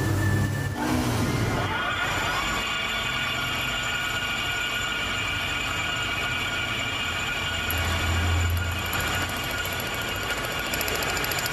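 A power tool working steel: a steady grinding noise with several high ringing tones held over it, and a low hum that swells briefly about eight seconds in.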